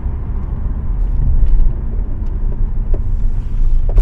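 Steady road and tyre rumble inside the cabin of a moving 2015 Audi A4, with a few faint short creaks and ticks in the second half from the front suspension, whose control-arm rubber bushings are worn loose and cracked.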